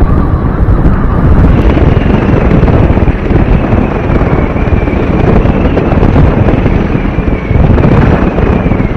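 Wind rushing over the microphone of a motorcycle riding at speed, mixed with the bike's engine and road noise. A thin high whine comes in about a second and a half in.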